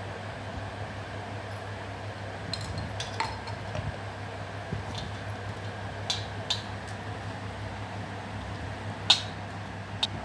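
Scattered light clinks of dishes and a spoon, the sharpest about two thirds of the way in, over a steady low hum.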